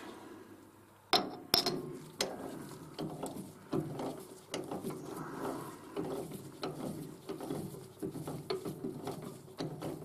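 A camlock T-key working the D1-4 cams on a Warco GH1322 lathe's spindle nose, which hold the Burnerd collet chuck. Metal clicks and knocks come irregularly as the key seats in the cam sockets and turns, with two sharp clicks a little over a second in.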